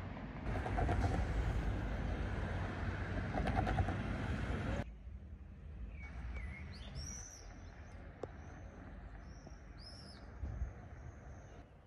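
Road traffic on a busy street, with two vehicles passing in swells, cutting off abruptly about five seconds in. Then a quieter street where birds chirp a few times.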